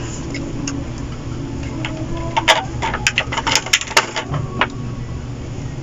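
A quick run of about ten sharp clicks and taps from hard small objects, about two to four seconds in, over a steady low background hum.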